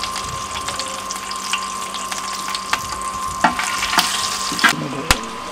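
Crushed garlic and bay leaves frying in hot oil in a pot, a steady sizzle, with a few sharp clicks from stirring in the second half.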